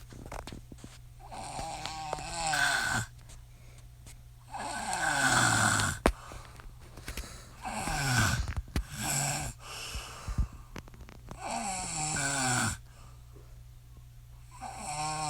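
A woman snoring in a steady rhythm, a loud rasping snore every three seconds or so, each one falling in pitch. A few sharp clicks fall between the snores.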